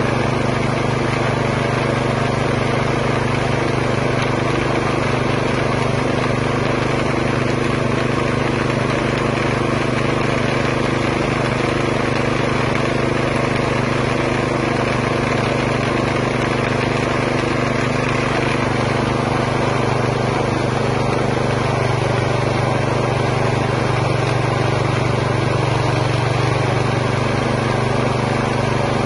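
Chicken meat and bone grinder running steadily under its motor, a constant hum while it minces chicken into the bucket.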